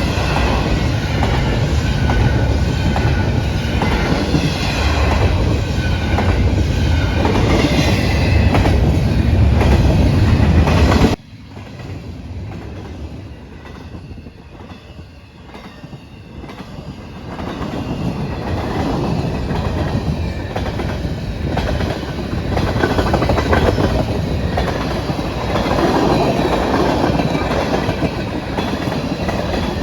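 Freight train rolling past, steel wheels clattering and squealing on the rail. The sound drops off suddenly about eleven seconds in, then builds back up as more of the train passes.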